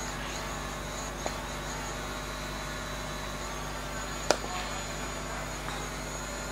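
A steady, high-pitched drone of insects, with one sharp crack of a cricket bat striking the ball about four seconds in. A fainter click comes about a second in.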